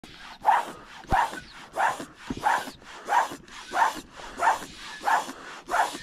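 Footsteps crunching at a steady walking pace, about three steps every two seconds.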